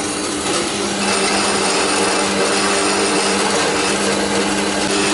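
Horizontal metal-cutting band saw running and cutting through a steel block: a steady motor hum under a dense, even hiss from the blade.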